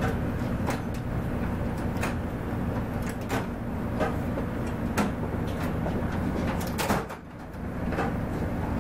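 Scattered light clicks and clinks as a 150cc go-kart's intake manifold is pushed onto its studs by hand, over a steady low hum that drops out briefly about seven seconds in.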